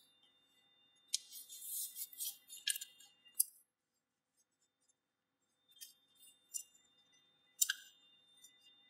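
A sheet of A4 paper rustling and crackling as fingers fold and crease it, in short bursts with a few sharp crackles. It drops to dead silence for about two seconds in the middle, then the crackles return.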